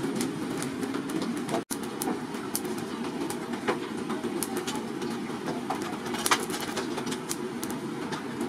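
Steady rush of a homemade electric blower fan forcing air into a charcoal forge fire, with frequent sharp crackles and pops from the burning charcoal. The sound cuts out for an instant under two seconds in.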